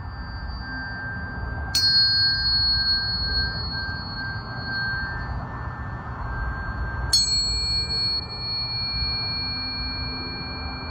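Tuning forks struck twice, a little over five seconds apart, each strike ringing on in clear, steady high tones.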